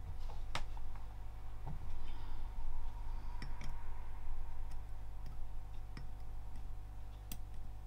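Light, scattered clicks and ticks as a soldering iron tip nudges a surface-mount push button into line on a key fob circuit board, over a steady low hum.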